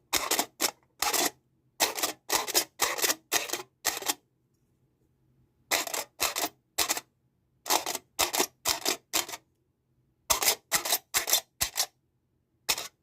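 Foil being crinkled in short, sharp bursts, coming in quick runs of three to six with pauses of about a second between runs.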